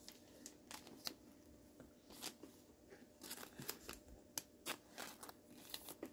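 Faint, irregular clicks and rustles of basketball trading cards being handled and flipped through one by one.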